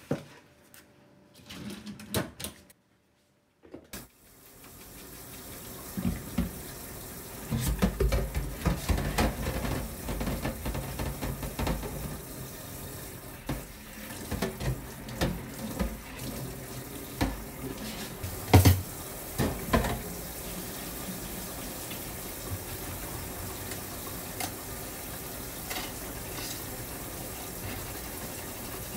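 Kitchen tap running a steady spray into a stainless-steel sink over a wire dish rack. Many metal clatters and knocks come as the rack is handled and washed, busiest in the first half, with one sharp knock past the middle. A few light knocks come just before the water starts.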